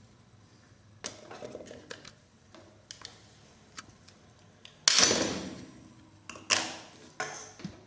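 Hand-held plastic pipe cutter closing on 25 mm blue MDPE water pipe: a series of small clicks as the handle is squeezed, then a loud sharp snap about five seconds in as the blade cuts through the pipe, followed by another sharp knock.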